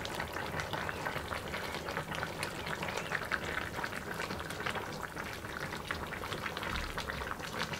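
Broth with pork spare ribs and pechay bubbling at a steady simmer in a pot, a dense run of small pops and crackles. A spatula turns the ribs in the liquid.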